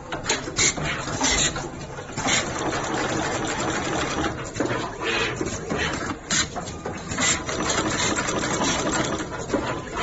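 Multi-core cable stripping and ferrule crimping machine at work: sharp mechanical clacks at irregular intervals of about a second as each core is stripped and crimped, over a steady mechanical noise.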